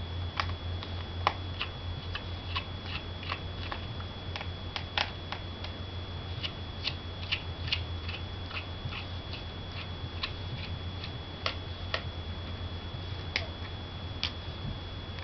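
Small Torx screwdriver backing screws out of a BlackBerry 8830's plastic housing: light, irregular clicks and ticks of the driver tip and the handled phone, a few of them sharper. Under them runs a steady low hum with a thin high whine.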